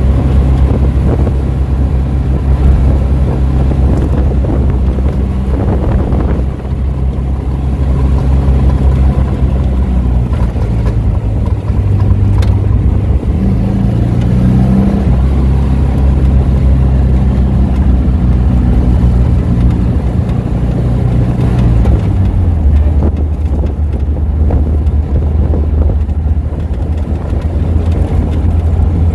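Car engine running while driving along at speed in an open-top car, with steady wind and road noise over it. The engine note shifts a few times and steps down about three-quarters of the way through.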